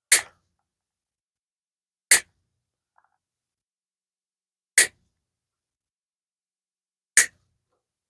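Hand cutters snipping through wire screen: four sharp snips a couple of seconds apart, trimming off excess mesh.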